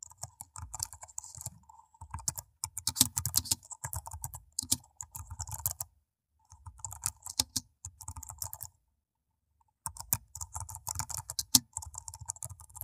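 Computer keyboard typing: rapid runs of clicking keystrokes, a typing sound effect. It stops briefly about six seconds in and again around nine seconds.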